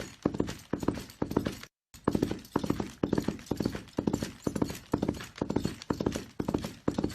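Horse galloping: hooves strike in quick clusters of several beats, repeating about every 0.6 s in a steady gallop rhythm. The hoofbeats cut out for a split second just under two seconds in, then carry on.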